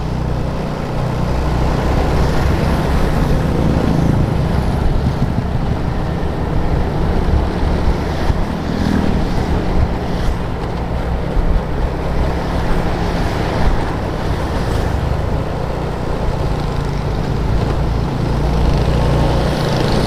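Motorcycle engine running steadily while riding, mixed with wind rushing over the microphone.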